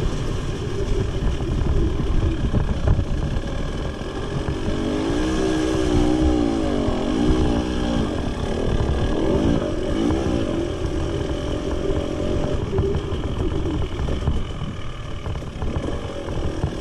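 Two-stroke engine of a Husqvarna TE 300 enduro motorcycle running under a rider on a dirt trail, its revs rising and falling several times in the middle, over a heavy low rumble.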